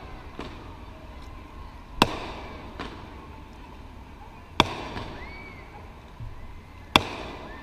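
Aerial fireworks exploding: three sharp bangs about two and a half seconds apart, each trailing off in an echo.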